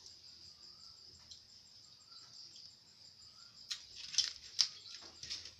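A steady chorus of crickets trilling, with a faint short note repeating about once a second. A few sharp clicks and clatters come about four seconds in.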